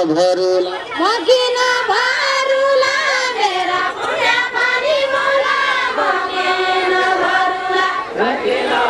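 A group of women singing a Deuda folk song together, the far-western Nepali song sung in a line with linked arms, in long held lines with a wavering pitch.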